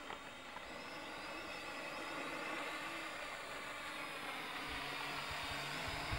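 Small Sky Hawkeye FPV quadcopter flying, its propellers and electric motors giving a steady high whine that grows gradually louder. Low rumbling bursts come in near the end.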